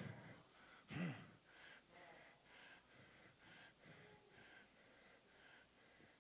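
Near silence, broken by a man's breathing close to a handheld microphone: one audible breath about a second in, then faint, soft puffs about twice a second.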